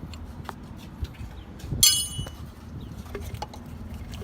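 Metal clinks of a wrench working a power steering line fitting, with one loud ringing metallic clang a little under two seconds in.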